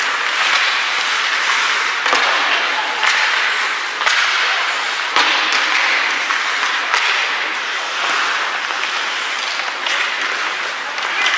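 Ice hockey play on a rink: a steady hiss of skates scraping the ice, broken by several sharp cracks of sticks striking the puck.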